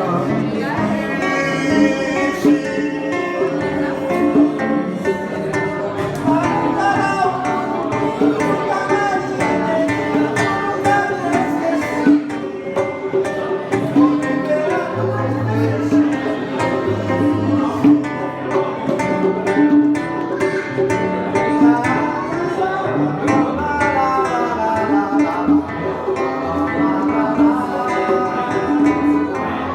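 Acoustic guitar (violão) playing with a man singing, and bongos and congas tapping a steady rhythm by hand.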